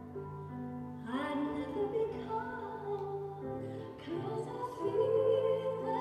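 A slow, tender ballad played over the hall's sound system: sustained instrumental notes, with a female voice coming in singing about a second in and swelling near the end.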